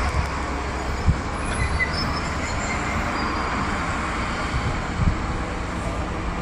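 Heavy truck running, a steady low engine and road rumble, with two short thumps: one about a second in and one about five seconds in.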